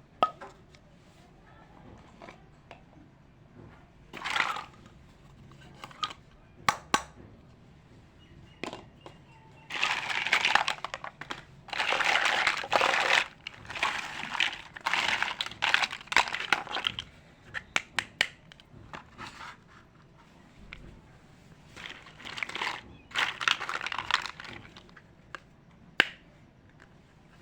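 Plastic packaging crinkling in irregular bursts during the unboxing of a miniature toy kitchen set, with sharp clicks of small plastic pieces being handled.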